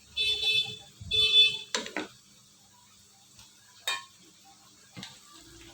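Metal kitchen utensils on a cooking pot: two ringing clangs of about half a second each in the first second and a half, then a few short, sharp knocks.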